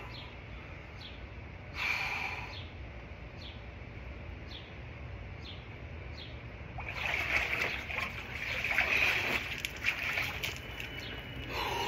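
Water sloshing and splashing in a cold plunge tub as a person stands up and climbs out, loudest from about seven seconds in, with water streaming off the body. Earlier, short high chirps repeat about every half second over a brief slosh.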